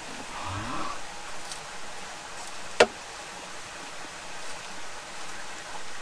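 One sharp clink of tableware on the table, such as a glass oil bottle set down or a fork against a plastic salad container, about three seconds in, over a steady rushing background noise.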